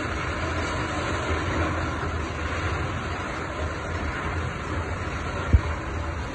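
Strong storm wind roaring steadily, with a low rumble of wind on the microphone, and a single sharp thump about five and a half seconds in.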